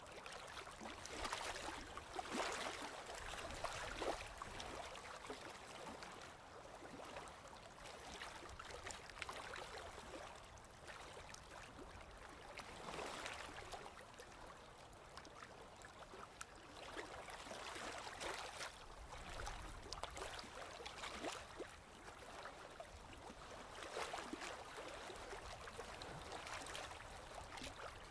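Sea waves washing in and drawing back on the shore, a soft hiss that swells and fades every few seconds.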